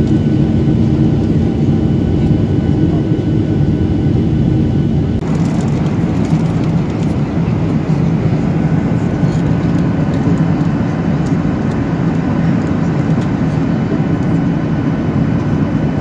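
Jet airliner cabin noise in flight beside the window: a steady rush of engine and airflow, with a low hum in the first few seconds, changing abruptly about five seconds in to a broader, hissier rush.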